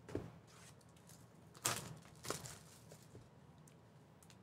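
Cardboard trading-card boxes being handled and set down on a table: a few soft knocks and scrapes, the loudest a little under two seconds in.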